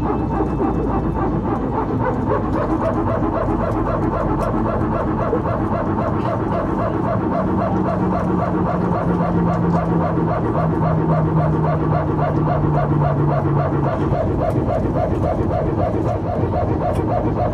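Airbus A320 power transfer unit (PTU) running continuously, heard inside the cabin: the fast, even, barking drone of the hydraulic pump-motor passing pressure between the green and yellow hydraulic systems. A lower hum slides slowly down in pitch midway.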